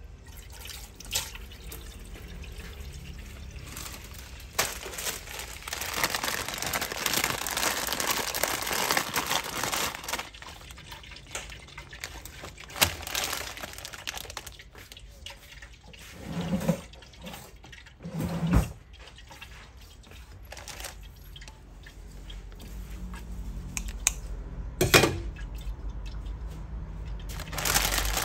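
Kitchen tap running into a plastic basin in a stainless-steel sink, filling it with water; the pouring is loudest about a quarter of the way in. A few short knocks of handling break in here and there.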